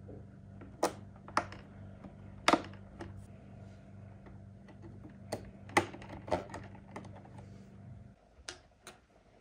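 Sharp plastic clicks and taps from small trim pieces being pressed and snapped onto the hard plastic body shell of a 1/16-scale RC Toyota Land Cruiser 80, about ten in all; the loudest come about two and a half and six seconds in. A steady low hum runs underneath and stops about eight seconds in.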